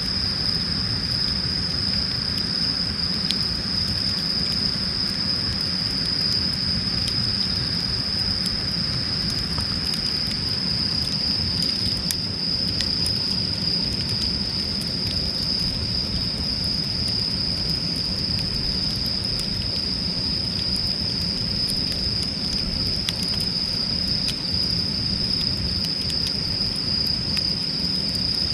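Campfire firewood crackling with scattered small pops, under a steady, high-pitched drone of insects chirring.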